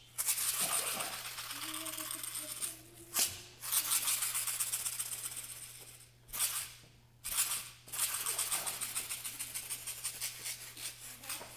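A shaker or rattle shaken in long runs of quick, dense rattling, three runs broken by short sharp accents.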